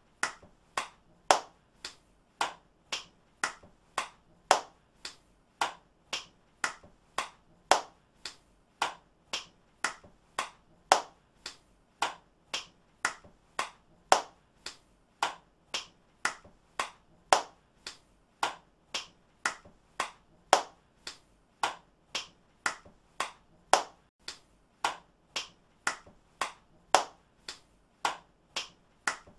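One person's hand claps, looped and repeating at a steady pace of about two a second, with a louder clap about every three seconds.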